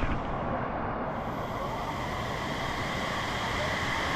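Steady rushing of a waterfall, an even roar of falling water with no break.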